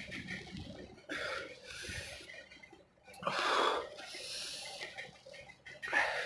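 A man breathing hard from the burn of an extremely hot chili chip: three sharp, noisy breaths, about a second in, a longer louder one in the middle, and one near the end.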